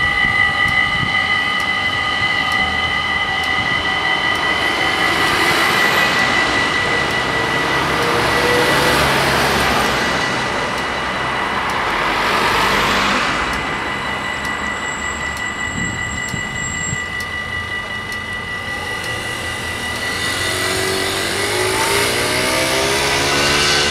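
Level-crossing warning bells ringing steadily as a high, constant tone, with road vehicles passing by in several swells. Near the end a diesel train's engine note comes in and rises as the train approaches the crossing.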